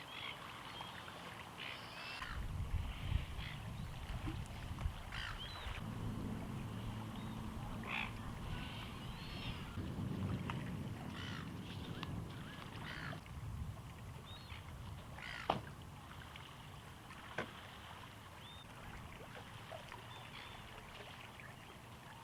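Distant thunder rumbling low for about ten seconds, then fading, with birds calling over it throughout.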